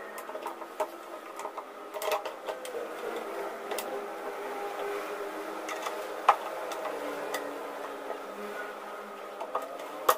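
Scattered clicks and knocks of wooden cabinet doors and concealed cup hinges being handled, with a sharp knock about six seconds in and another near the end, over a faint steady hum.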